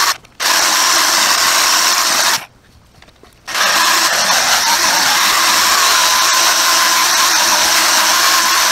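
Handheld 12-volt rotary polisher running steadily while buffing scratches out of painted clear coat with a polishing pad. It stops briefly just after the start and again for about a second before starting up again.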